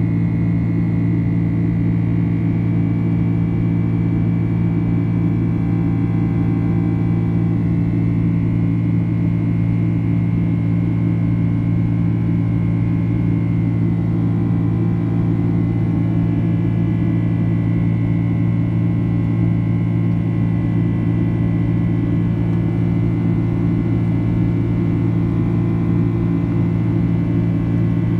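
Boeing 767-300ER in flight heard from inside the cabin: a steady low drone of the jet engines and airflow, with a faint, steady high whine above it.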